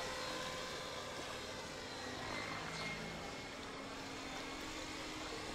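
Radio-controlled 3D aerobatic helicopter flying, its rotors and drivetrain giving a steady whine. The pitch dips and then rises again about halfway through as it maneuvers.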